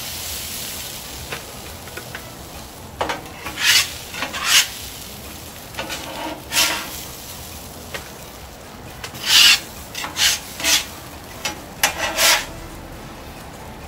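Steel spatula and bench scraper scraping across the steel top of a Blackstone 22-inch flat-top griddle as hash brown potatoes are scooped off. It comes as a series of short scrapes at irregular intervals, over a faint steady sizzle.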